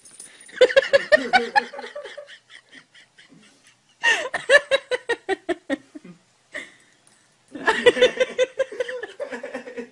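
A person laughing hard in three bouts, each a quick run of ha-ha pulses falling in pitch.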